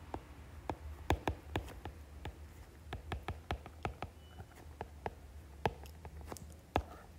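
Stylus tip tapping and clicking on a tablet's glass screen while handwriting, in irregular sharp clicks about three a second, over a faint steady low hum.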